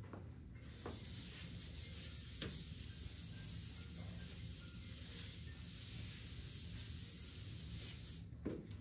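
Chalkboard eraser wiping chalk off a chalkboard: a steady, hissing rub that swells and eases with the strokes. It starts about a second in and stops shortly before the end.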